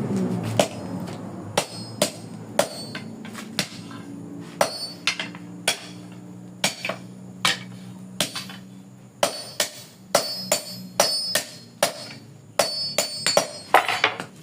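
Hand hammer striking a steel coil, about thirty irregular blows, sometimes in quick runs of two or three, each with a short metallic ring. A steady low hum runs underneath.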